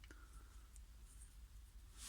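Near silence: room tone with a steady low hum and one faint click right at the start.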